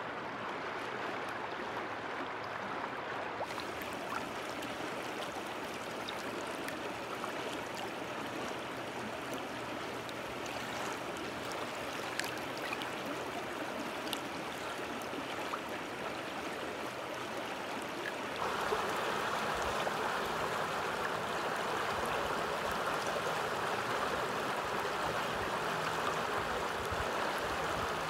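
Shallow water running and lapping over rounded stones at a pebbly shoreline, a steady rushing that turns louder and fuller about two-thirds of the way in.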